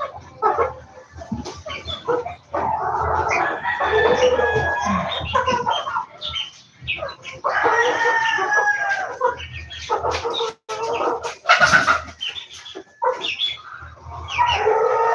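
Domestic chickens clucking, with roosters crowing several long calls one after another. A brief sharp knock comes about three quarters of the way through.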